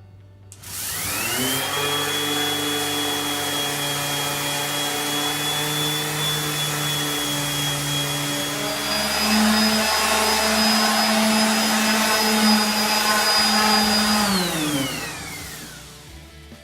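Variable-speed electric sander with 150-grit paper running on a cast-iron table saw top. It spins up just under a second in, runs steadily with a whining motor, steps up in pitch about nine seconds in, then is switched off and winds down near the end.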